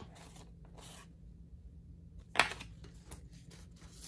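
Paper banknotes rustling softly as they are handled and slid into a binder's cash envelope, with one short, sharp, louder sound about halfway through.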